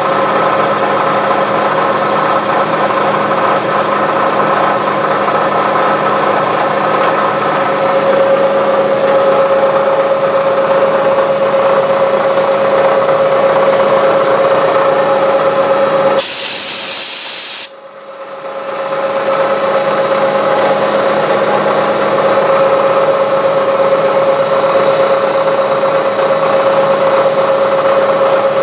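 Metal lathe cutting a 1/4-28 thread on a thin rod, taken slowly, with a milling machine running at the same time: a steady machine hum with a constant tone. About 16 seconds in there is a hiss lasting over a second, then the sound dips sharply and builds back up over a couple of seconds.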